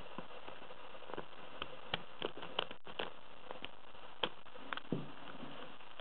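Small irregular metallic clicks and ticks of a lock pick and tension wrench working the pins inside a brass padlock, over a steady background hiss.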